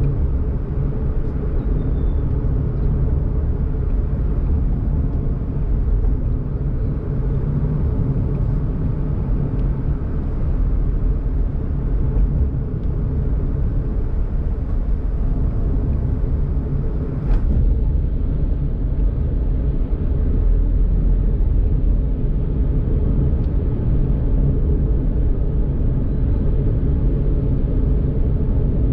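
Daihatsu Mira Tocot kei car driving along a road: a steady low rumble of engine and tyres, with one short sharp click a little past halfway.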